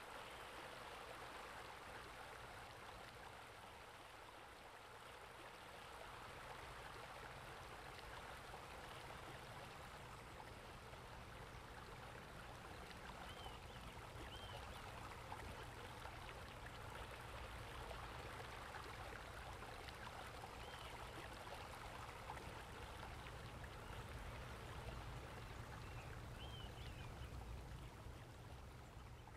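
Faint, steady running water like a stream or small waterfall, with a few short high chirps now and then.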